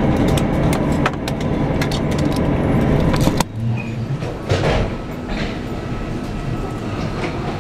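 Airbus A321 cabin noise while taxiing: a steady rumble and hiss with scattered clicks. About three and a half seconds in it cuts off sharply to a quieter ambience with a few soft knocks.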